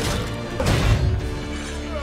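Dramatic film score with heavy crashing impacts from a giant-robot fight. The loudest hit comes about a second in, and held music tones carry on after it.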